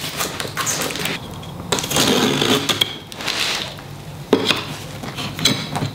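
A knife cutting through the plastic wrap and tape on top of a cardboard shipping box, with irregular scraping and crinkling. There is a sharp tap about four seconds in.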